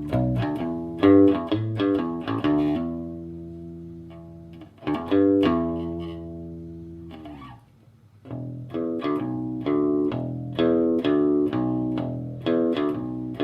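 Electric bass guitar, a Fender Squier P bass with old, dead strings and its stock bridge, played with a pick through an Ampeg Micro VR head and AV112 cabinet. It starts with a run of picked notes, then one note is left to ring out from about five seconds in. After a brief pause near eight seconds comes a steady stream of quickly picked notes.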